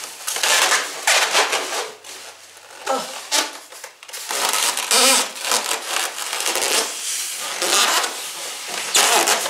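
Plastic wrapping crinkling and a foam packing insert rubbing as they are pulled out of a cardboard box, in loud irregular bursts with short pauses between them.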